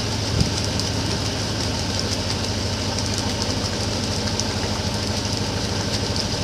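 Motorized bangka's engine running steadily with a fast, even chugging, over a steady hiss.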